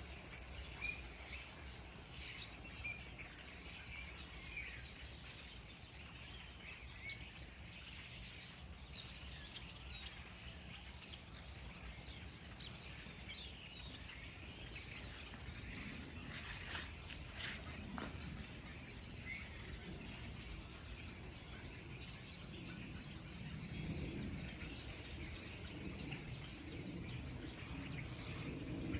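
Several small birds chirping, with many short, high calls overlapping. The calls are busiest in the first half and thin out later, while a low rumble rises underneath in the second half.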